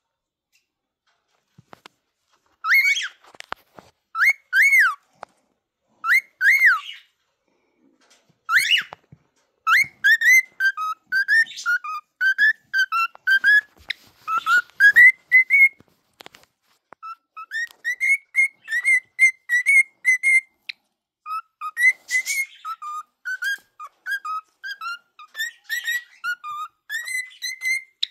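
Cockatiel whistling: a few separate rising-and-falling whistles, then from about ten seconds in a long run of quick warbled notes going up and down like a tune.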